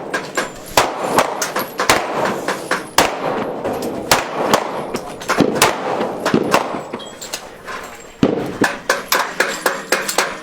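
Gunfire from several guns on an outdoor firing line: irregular, overlapping shots, each with a short echo, turning into a quick string of about five shots a second near the end.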